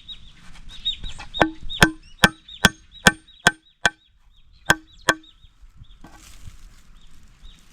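Hammer driving nails into wood: nine sharp blows at about two and a half a second, each with a short metallic ring, with a brief pause after the seventh, stopping about five seconds in.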